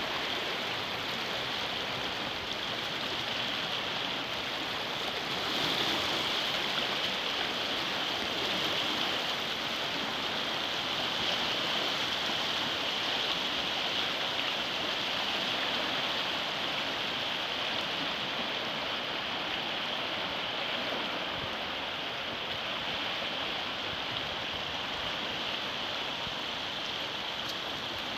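Swollen, muddy floodwater flowing fast past the riverbank, a steady rushing and swirling of water.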